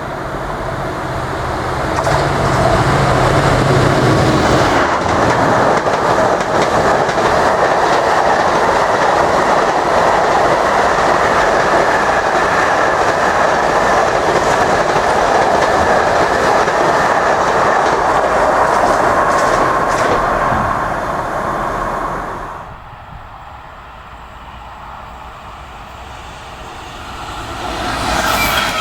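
Freight train passing at speed. A deep locomotive engine note in the first few seconds gives way to a long run of wagons rumbling and clattering over the rail joints. The sound drops away sharply about 22 seconds in, and another rising train sound begins near the end.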